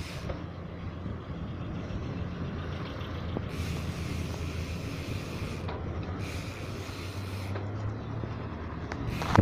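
A motor vehicle engine running steadily nearby, with two stretches of wind hiss on the microphone of a moving bicycle ride and a sharp knock near the end.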